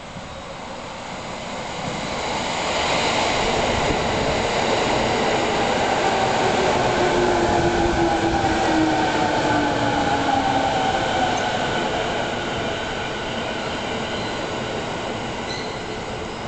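An E217-series electric commuter train pulling in alongside a station platform. The rail noise builds over the first few seconds, a falling whine comes in as the train brakes, and the sound dies down as it slows to a stop near the end.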